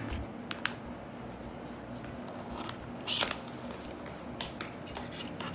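Small plastic building blocks being handled and pressed together: a scatter of light clicks and rustles, with a slightly louder rattle about three seconds in.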